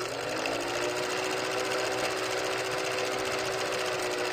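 Film projector running: a fast, even mechanical clatter over a steady motor hum, the hum rising a little in pitch in the first half second as it comes up to speed.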